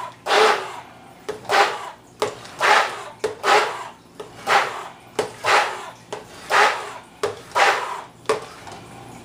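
Stick blender whirring as it purees tomato salsa in a bowl, the sound surging and fading about once a second as the blade churns the liquid.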